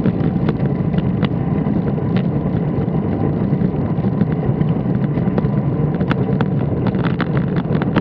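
Steady low rumble of a vehicle rolling along a paved street, picked up by a camera mounted on it, with scattered sharp clicks and rattles that come more often near the end.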